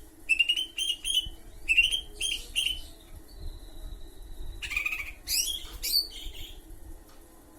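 A bird chirping in short, quick high notes. A thin steady whistle is held for about a second and a half in the middle, followed by a few louder, harsher calls, then the sound fades out.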